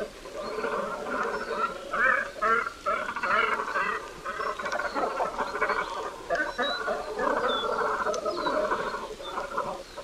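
Great cormorants calling: a continuous chorus of overlapping calls from several birds, many of them quick stuttering runs.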